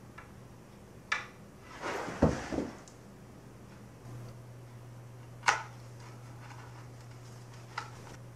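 A pool cue being handled: a few sharp clicks and knocks, with a heavier low thump about two seconds in, over a steady low hum.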